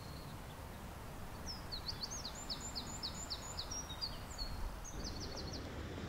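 A small songbird singing one phrase: a run of quick, high, down-slurred notes, then a few faster notes near the end, over a steady low rumble of wind.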